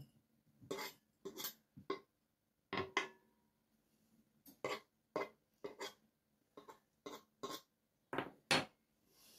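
A metal fork scraping grated cheese off a wooden cutting board and a glass mixing bowl taking the knocks. It comes as a series of irregular short scrapes and taps.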